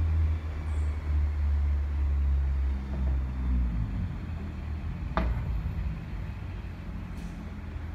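Diesel train engine rumbling low, fading after about four seconds as the train moves away, with one sharp knock about five seconds in.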